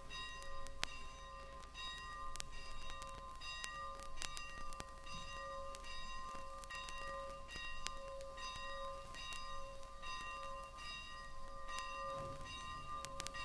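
Steam locomotive's bell ringing in a steady, even rhythm, heard off a vinyl record with scattered surface clicks.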